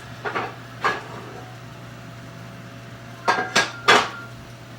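Metal cookware clanking as a pan is pulled out: two light knocks near the start, then three sharp clanks about three seconds in, the last ringing briefly.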